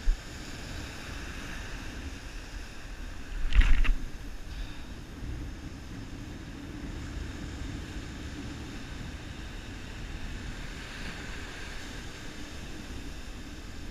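Surf washing up the beach with wind buffeting the microphone, a steady rushing noise. There is a brief louder burst about three and a half seconds in.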